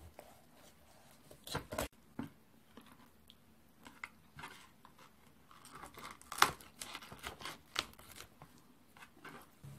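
Kitchen knife cutting a raw, skinned chicken into pieces on a plastic cutting board: scattered soft cracks, knocks and tearing as the blade goes through flesh and joints and meets the board, the sharpest about six and a half seconds in.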